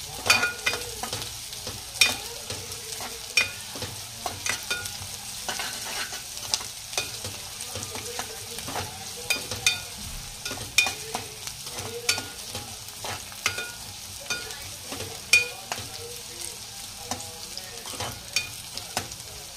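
Sliced onions frying in oil in an aluminium pressure cooker, with a steady sizzle. A metal ladle scrapes and clinks against the pot in frequent irregular knocks as they are stirred, being sautéed until translucent.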